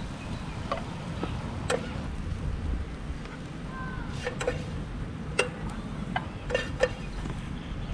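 Slotted spatula clicking and scraping against a frying pan and metal bowls as scrambled egg is scooped onto rice: about nine short sharp clicks at uneven intervals over a steady low rumble.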